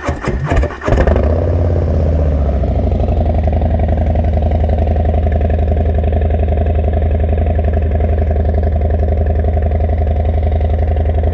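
Harley-Davidson Low Rider S's Milwaukee-Eight 117 V-twin starting through a new SP Concepts Big Bore 4.5 exhaust: a short burst of starter cranking, the engine catches about a second in with a brief flare of revs, then settles into a loud, steady, pulsing idle.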